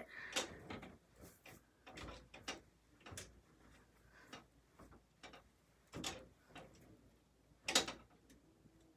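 Faint, irregular clicks and knocks of someone rummaging for clothes, with one louder knock near the end.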